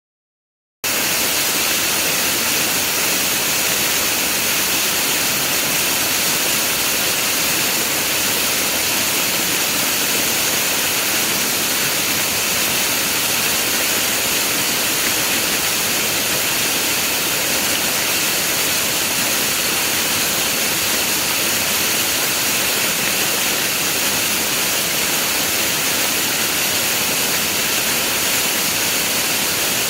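Waterfall heard from directly above: a steady, unbroken rush of falling water, starting about a second in.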